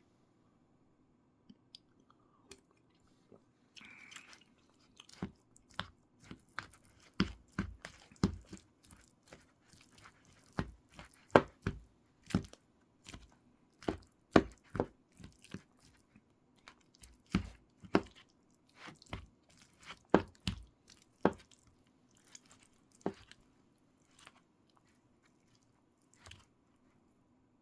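Close-miked eating: chewing and biting, with irregular sharp clicks and smacks, thickest in the middle stretch and thinning out near the end.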